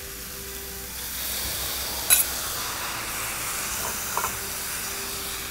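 Sliced fresh tomatoes going into a hot skillet of zucchini sautéed in butter, sizzling steadily and louder from about a second in. A sharp clink about two seconds in and a couple of light knocks later.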